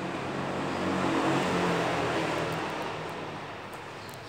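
A motor vehicle going by, its engine and road noise swelling about a second in and slowly fading away.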